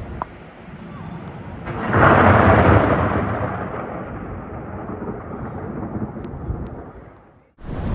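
A rumble of thunder during a snowstorm (thundersnow), swelling to its loudest about two seconds in and slowly fading away.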